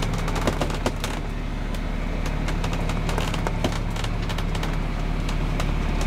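Sailboat's inboard diesel engine running steadily under way, a low hum with scattered sharp clicks and rattles over it.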